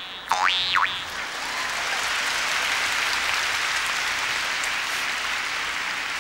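A Siberian jaw harp twanging, its overtones sweeping up and down as the tongue moves forward and backward, ending about a second in. Then an audience applauding.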